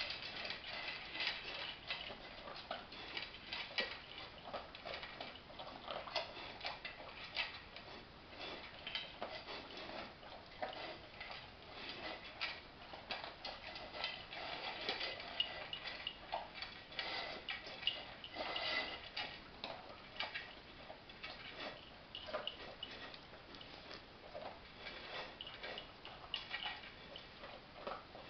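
Two dogs eating from bowls at feeding time: a continuous, rapid, irregular clicking and crunching of food being chewed and nosed around the bowls.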